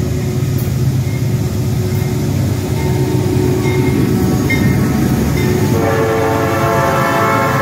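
Passing train's engine and wheels making a steady low rumble; about six seconds in, the locomotive's air horn sounds a held chord of several notes.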